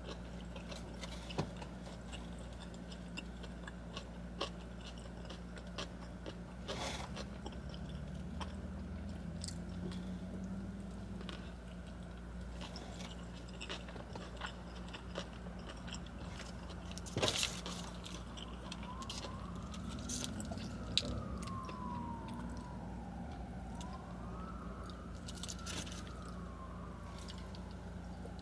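Close-up chewing and biting of a burger and fries, with scattered soft crunches and mouth clicks over a steady low hum. Through the second half, a siren wails in slow rising and falling sweeps.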